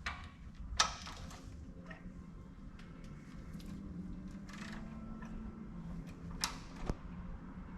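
A few sharp metallic clicks and clinks from a wrench on the crankshaft bolt as the BMW F80 M3 engine is turned over by hand to check the timing, over a low steady hum.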